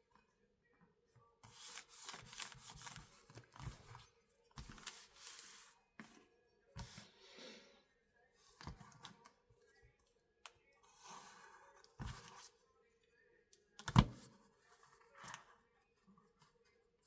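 Paper being scraped and rubbed with a hand bookbinding tool: several rustling, scraping strokes of a second or two each, then a sharp knock on the work surface about fourteen seconds in, the loudest sound.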